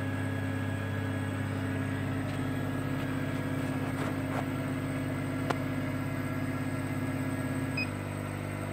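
An 80 W CO2 laser cutter's fans and pumps running with a steady low hum, with a fast flutter in it. Two sharp clicks come midway, and a short high beep near the end, after which the hum changes slightly.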